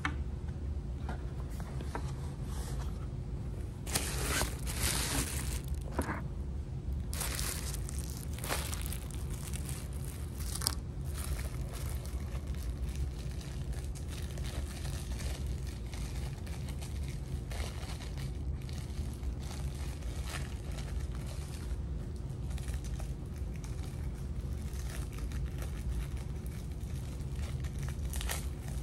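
Paper takeout packaging rustling and crinkling as a folded paperboard takeout box and a paper bag are handled, in irregular bursts that are strongest in the first ten seconds or so. A steady low hum runs underneath.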